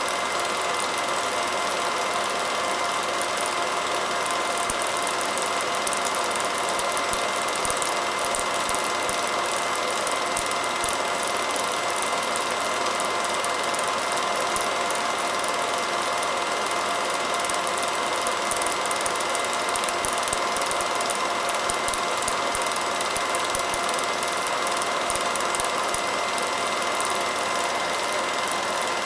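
Home-movie film projector running: a steady mechanical whir with a fast, fine clatter from the film advance, unchanging throughout.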